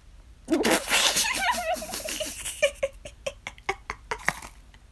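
A person bursting into hard laughter: a sudden breathy outburst, a wavering high laugh, then a run of short gasping laugh pulses that die away.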